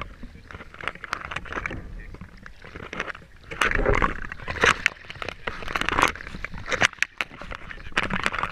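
Seawater sloshing and splashing around a rig held at the surface, with irregular scrapes and knocks against the camera housing, surging louder about four seconds in.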